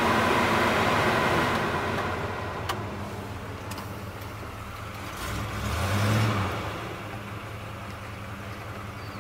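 1981 Chevrolet Camaro Z28's V8 running at idle, heard from inside the cabin, with one short throttle blip about five to six seconds in. A loud hiss at the start fades away over the first two seconds, and there is a single click a little later.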